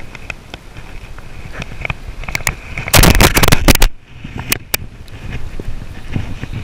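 Spinning reel being cranked during a fish fight, with light ticking and scraping. About three seconds in, a loud rushing noise lasts about a second, then come two sharp clicks.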